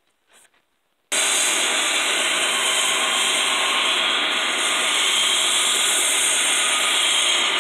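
Belt grinder running with a hardened steel cleaver blade held against the belt, grinding in the bevel: a steady grinding hiss that starts suddenly about a second in.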